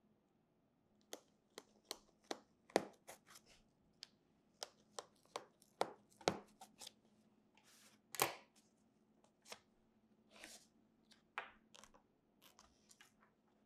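Small scissors snipping paper: a series of sharp, irregularly spaced snips, with a couple of longer paper rustles about eight and ten seconds in.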